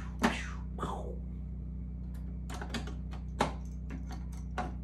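Sharp plastic clicks and knocks of batteries being fitted into the battery compartments on the plastic back of a Rhythm 'Prime Weave' musical wall clock: a few single clicks, then a quick run of them, and one more near the end.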